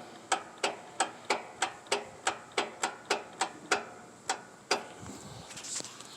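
Riding mower starter clicking in a steady rhythm of about three clicks a second, stopping a little before the end. The engine is stopping against compression instead of turning over, the sign of a broken compression-release arm on the camshaft.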